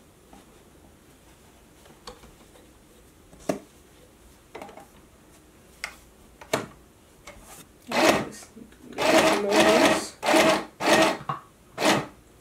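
We R Memory Keepers Stitch Happy sewing machine stitching through paper in about five short spurts of half a second or so near the end, after a few scattered light clicks.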